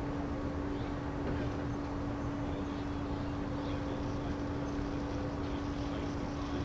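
A steady mechanical hum, one unchanging tone over a constant rushing noise.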